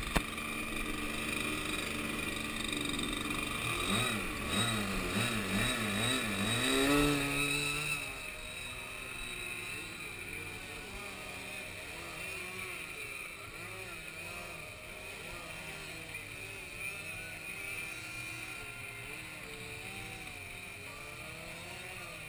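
Motors and propellers of RC aerobatic profile planes hovering nose-up, their pitch rising and falling constantly as the throttles are worked to hold the hover. The sound is louder, with wide swings in pitch, for about the first eight seconds, then fainter and steadier.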